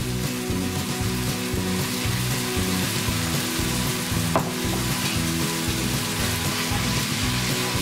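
Glass noodles sizzling with a steady hiss in a hot Tefal nonstick frying pan as soy-based seasoning is poured over them. There is a single short click about four seconds in.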